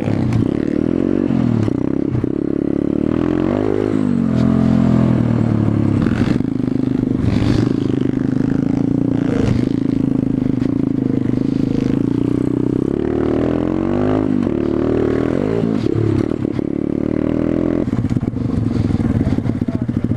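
Small four-stroke pit bike engine running under way, heard from the bike being ridden. Its pitch rises and falls several times as the throttle opens and closes and the gears change.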